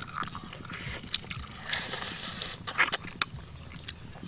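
A person chewing cooked chicken and smacking her lips, heard up close as irregular clicks and smacks.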